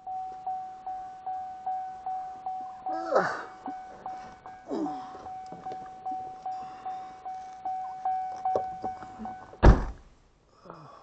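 Car's door-open warning chime dinging over and over, about two and a half chimes a second, then the car door slams shut near the end and the chime stops.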